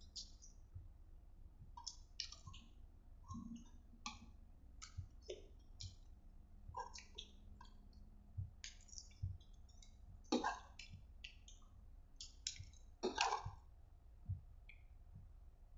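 Close-up eating sounds: a person chewing and eating spicy seblak, with irregular wet mouth clicks and smacks, a little louder twice near the middle and end.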